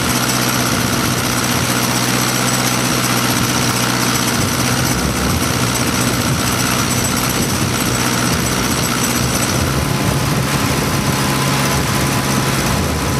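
A DC-7B's Wright R-3350 radial engine being pre-oiled. It makes a steady mechanical running sound with a rhythmic chugging, which is air being pushed out of the lower cylinders with their spark plugs removed. The low chugging grows stronger about halfway through.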